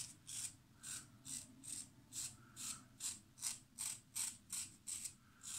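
GEM 1912 single-edge safety razor scraping through lathered stubble in short, even strokes, about two and a half a second, each a crisp rasp. A noisy cut, like a real lawnmower.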